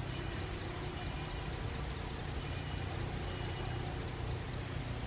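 Steady outdoor ambience: a constant low rumble under a steady high whine, with a fast, even series of short high chirps, about four or five a second.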